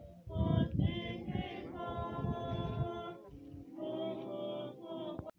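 A group of voices singing together in harmony without instruments, in slow sustained phrases. The singing cuts off abruptly just before the end.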